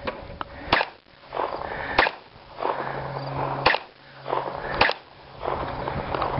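A pistol fired in a slow string: five sharp shots, one every second or so, each trailing off briefly before the next.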